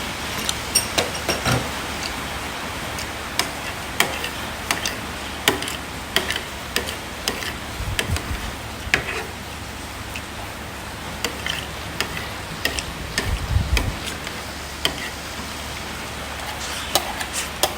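Metal utensils clicking and tapping irregularly against a dish, over a steady low hum, with two dull low thumps about eight seconds in and again past the middle.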